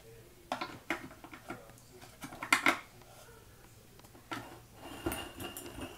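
Light clicks and clatter of a plastic toy camper van and the small toys stacked on its roof as a hand grips and pushes it along a floor, the loudest knocks about two and a half seconds in.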